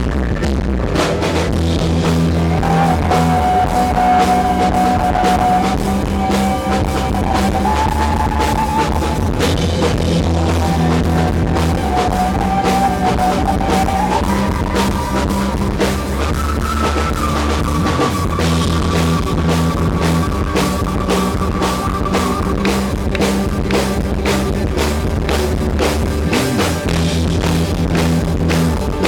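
Rock band playing live: drum kit and guitars with a steady beat, under a high lead line that holds long notes and steps upward in pitch.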